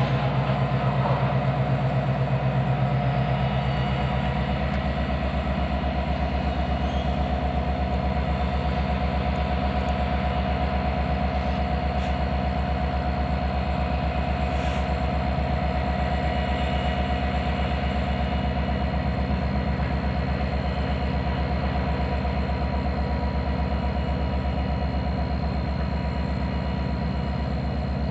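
Several Canadian Pacific diesel-electric locomotives running together, a steady low engine drone with a constant whine above it. The engine note drops deeper about four seconds in.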